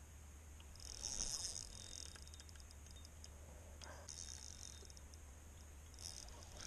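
Spinning reel clicking in fast runs with scattered single ticks between, as line is fought against a hooked bass.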